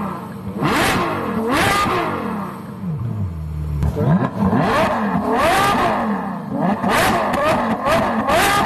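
Ferrari GTC4Lusso engine revved in repeated quick blips through its quad exhaust, the pitch rising and falling each time. It drops back to a low idle for about a second near the middle.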